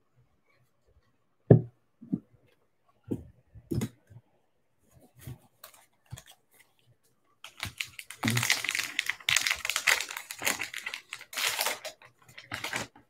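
A few sharp knocks of a plastic card holder and cards set down on a tabletop, then a trading-card pack's foil wrapper torn open and crinkling for several seconds near the end.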